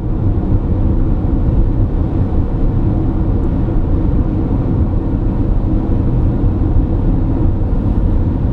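Steady low rumble of road and engine noise from a car driving at speed.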